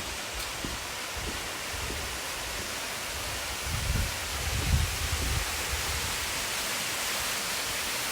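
Waterfall's steady rush of falling water, an even hiss with a few low rumbles about halfway through.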